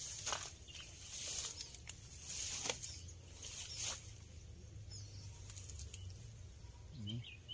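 Melon leaves rustling as they brush past, about four short swishes in the first four seconds, over a steady high thin whine, with a few faint bird chirps near the end.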